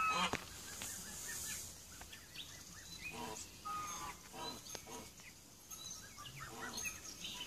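Brahma chickens clucking in a loose run of short calls, with small birds chirping faintly in the background.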